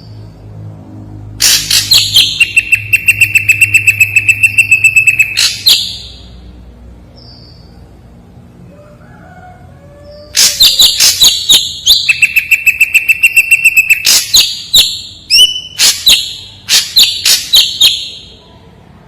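Ashy drongo (srigunting abu) singing loud, sharp song in two bouts: a run of clicking notes into a fast trill held for about three seconds, then after a pause of about four seconds a longer, more varied bout of sharp notes with another trill.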